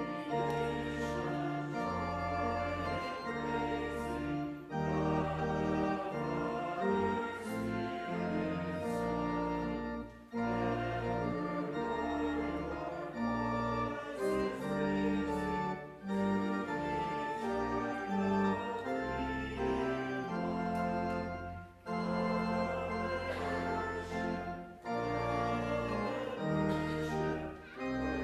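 Church organ playing a hymn tune in sustained chords, phrase by phrase, with brief pauses between the phrases.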